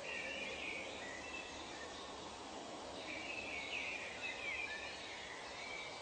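Outdoor nature ambience: a steady background hiss with birds calling over it. One call comes at the start, and a longer run of chirps with short falling notes comes about three seconds in.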